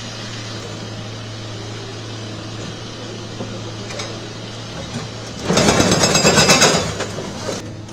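A demolition excavator's diesel engine runs with a steady low hum. About five and a half seconds in comes a loud, rapid clattering of concrete being broken and falling for about two seconds, which then cuts off abruptly.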